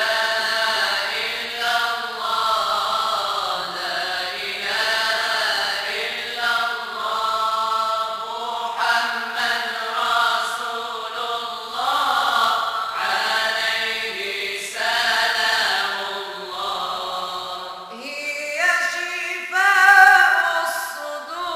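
A vocal group chants Moroccan devotional madih, songs in praise of the Prophet, with long sung lines over a steady low note and no percussion. About eighteen seconds in the melody climbs higher and grows louder.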